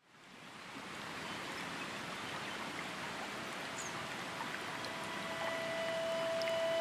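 Steady rushing of a forest waterfall, fading in over the first second. About five seconds in, a steady tone with overtones enters over the water.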